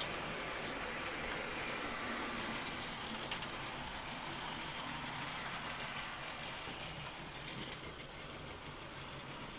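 Model trains running round a layout: a steady rolling rumble of wheels and small motors on the track, with a light click about three seconds in, easing a little near the end.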